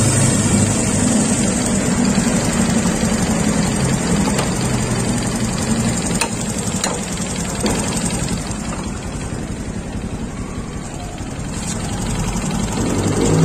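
Honda Supra X's single-cylinder four-stroke motorcycle engine idling with a steady tak-tak-tak knock. The mechanic traces the knock to a cylinder bore worn barrel-shaped, leaving too much clearance for the piston: piston slap from a worn bore, though the engine does not smoke.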